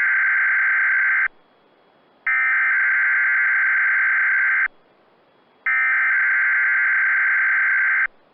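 Specific Area Message Encoding (SAME) header data bursts of a Weatheradio Canada alert: harsh digital screeching, sent three times. The first burst is already under way and ends about a second in, then two more follow, each about two and a half seconds long with about a second of near silence between. These coded bursts carry the warning's details for alert receivers, here for a weather warning.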